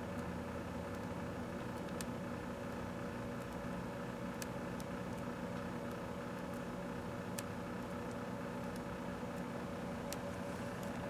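1984 Kenmore microwave oven running with bubblegum heating inside: a steady hum with a few faint ticks.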